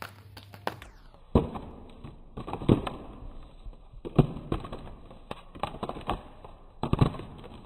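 A series of irregular thumps and taps, about half a dozen, the sharpest a little over a second in, near the middle and near the end.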